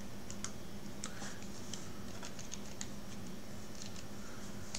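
Light, irregular clicks of TI-30XIIS calculator keys being pressed while working out squares, over a faint steady hum.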